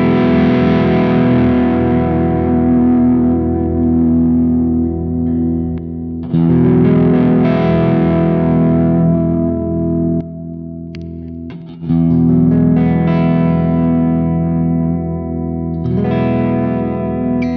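Ibanez Universe seven-string electric guitar played with distortion: big chords struck and left to ring, a fresh one about every five seconds, with a quieter, thinner passage between about 10 and 12 seconds in.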